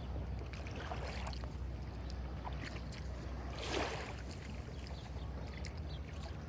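Calm beach ambience: a steady low rumble with scattered soft clicks and small lapping sounds, and one brief louder swish just under four seconds in.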